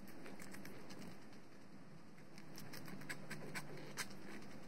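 Guinea pigs crunching raw carrot and celery sticks: a scatter of short crisp bites and chews, thickest in the second half, with the loudest crunch near the end.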